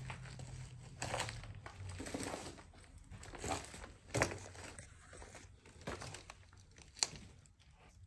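Crunching and crinkling of debris underfoot as someone walks over a littered floor, with a sharp click about seven seconds in.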